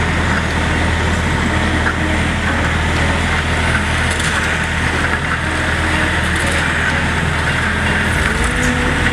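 Wheeled excavator's Yanmar diesel engine running steadily, with motorcycles passing close by twice.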